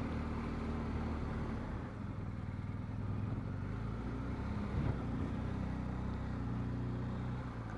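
BMW R1250 GS Adventure's boxer twin running at low revs, a steady low hum, with one brief rise about five seconds in.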